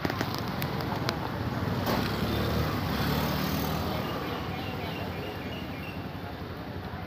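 A passing motor vehicle, rising to its loudest two to four seconds in and then fading. A few sharp splashes on the water come in the first second or so.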